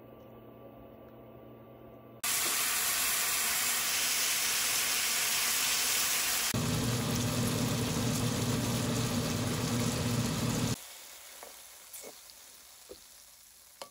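Spicy marinated meat and onions sizzling loudly as they stir-fry in a hot wok. The sizzle starts abruptly about two seconds in, turns deeper and fuller midway, and cuts off about eleven seconds in, leaving a few light utensil clicks.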